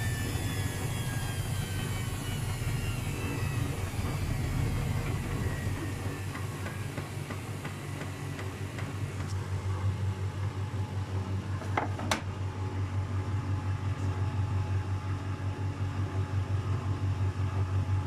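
Luxor WM 1042 front-loading washing machine in an unbalanced spin. A faint motor whine falls slowly in pitch over the first several seconds, under a low drum rumble whose rhythmic pulsing grows stronger toward the end. A couple of sharp clicks come about twelve seconds in.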